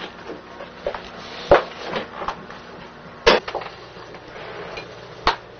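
Three sharp knocks, roughly two seconds apart, with fainter clicks and rustling between them, like objects being handled and set down in a room.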